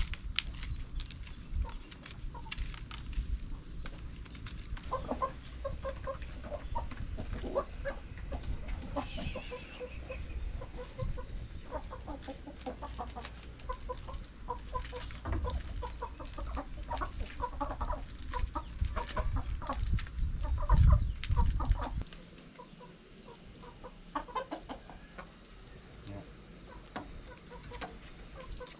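Chickens clucking over and over as they gather around, with small clicks of dried corn kernels being stripped by hand from the cob into a plastic basket. A low rumble runs underneath and cuts off about three-quarters of the way through.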